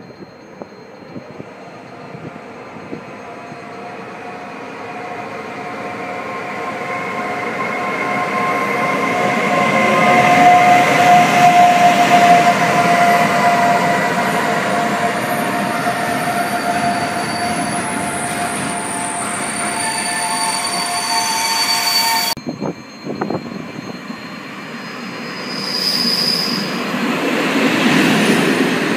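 A freight train hauled by an ES 64 F4 electric locomotive approaches and passes through the station, its noise growing steadily louder with several steady high tones over it and peaking about ten seconds in. After an abrupt break a little past twenty seconds, a passenger train moves along the platform, its noise rising again.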